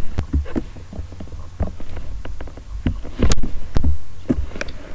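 Scattered computer-mouse clicks and small knocks, picked up by a nearby microphone, over a steady low electrical hum. The loudest thump comes a little past halfway.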